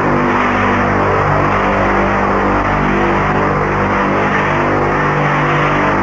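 Loud, steady droning hum with many overtones, the kind of eerie 'strange sound' from the sky that some people take for apocalyptic trumpets and others for alien craft. A hiss rides on top, swelling and fading every couple of seconds.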